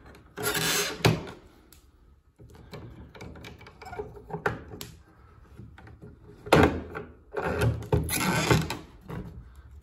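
Cut-down plastic rods being pushed into the plastic frame of an in-wall toilet flush plate: plastic scraping and rubbing, with several sharp clicks, the loudest about six and a half seconds in.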